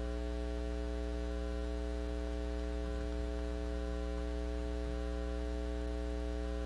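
Steady electrical mains hum: a low buzz made of a stack of even, unchanging tones that holds at one level throughout, with no speech over it.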